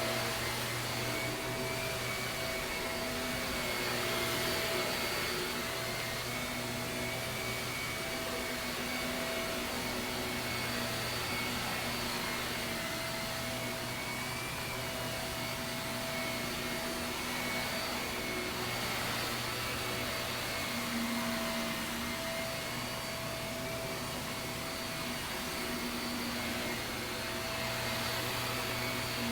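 Shark vacuum cleaner running steadily on carpet, its motor whine holding one pitch while the level swells and eases slightly.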